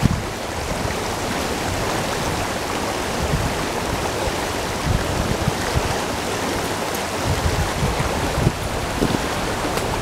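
Fast creek current rushing and churning over rock shelves: a steady, even water rush.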